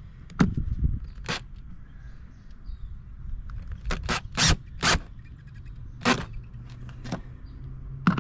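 Cordless drill/driver tightening the bolts on a fender bracket: about nine short, sharp bursts of clicking and scraping at irregular intervals, with a low rumble underneath.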